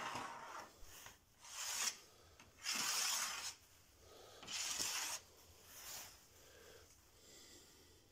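Clear plastic film rubbing and rustling against a steel worktable, in about five short scraping strokes with quiet gaps between them.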